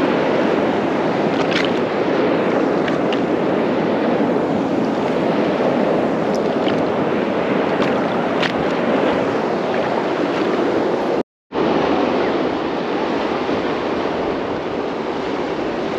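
Choppy sea water sloshing and lapping around a small boat, with wind buffeting the microphone; the sound drops out for an instant about two-thirds through.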